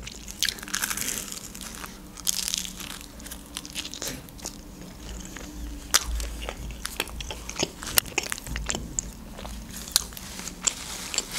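Close-up bites and chewing of a doner in toasted tombik bread: a bite near the start, then chewing with many small sharp crunches.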